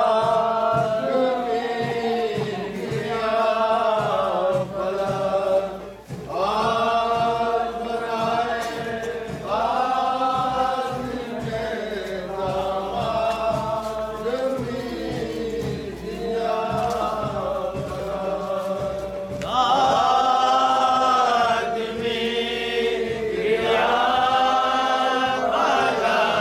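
A group of men chanting a nauha, a Muharram mourning lament, together in repeated sung phrases of a few seconds each.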